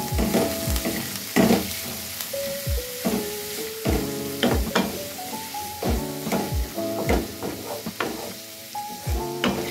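Background music with a thumping beat and a stepping melody. Under it, chopped onions sizzle in hot oil in a wok as a wooden spatula stirs them.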